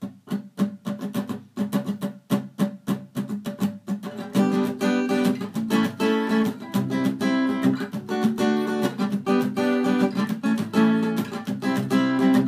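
Acoustic guitar strummed as a song intro: short, clipped strokes about five a second for the first four seconds or so, then full ringing chords in a steady strumming rhythm.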